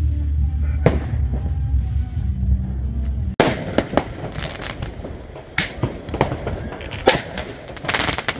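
Fireworks going off: a single bang over a steady low rumble about a second in, then, after an abrupt change a little past three seconds, sharp bangs every second or so and a rapid string of crackling reports near the end.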